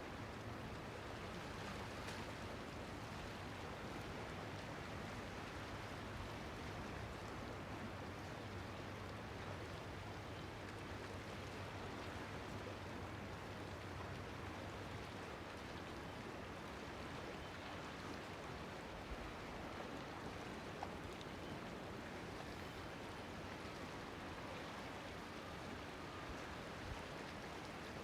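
Steady seaside harbour ambience: an even wash of water sound from the sea at the harbour, with a faint low hum through the first half.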